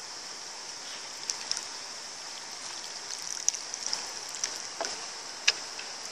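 Water trickling and lapping around a bamboo raft as it moves along a river: a steady hiss with a few light splashes and clicks scattered through.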